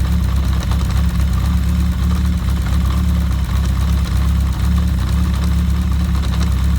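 Kawasaki GPz750 Turbo's air-cooled inline-four engine idling steadily with a light mechanical rattle, the abnormal noise attributed to its cam chain.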